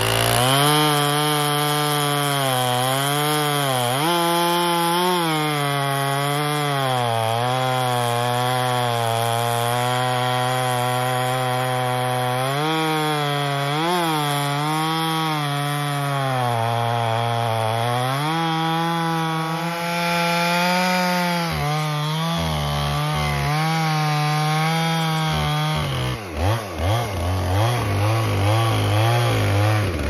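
Two-stroke chainsaw cutting through a large sugar pine log at full throttle, its engine pitch sagging and recovering again and again as the bar loads in the cut. Near the end the throttle is blipped on and off in quick short bursts.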